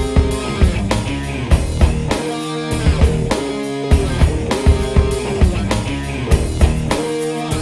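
Background rock music with drum kit and guitar and a steady beat.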